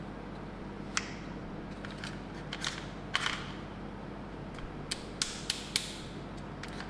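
Toy ambulance minicar being handled: irregular sharp clicks and light knocks of small hard parts, about eight in all, most of them between about one and six seconds in.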